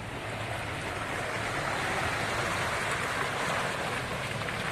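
A steady rushing noise that swells from about a second in, over the low, steady hum of a running engine.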